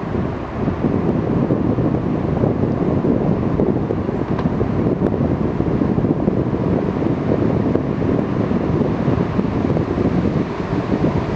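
Small boat at sea: a steady, dense low rumble of wind and water around the boat.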